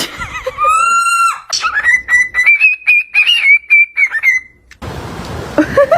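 Parrot giving loud whistling calls: a held whistle, then a long wavering whistle broken by clicks, and lower warbling sounds near the end.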